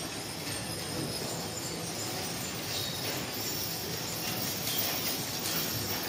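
Teams of draft horses pulling show wagons on arena sand: a steady rumble of rolling wagon wheels with harness hardware jingling.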